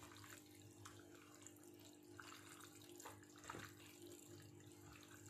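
Faint wet squishing of gloved hands working sliced chicken through a sticky tocino marinade in a metal basin, over a steady low hum.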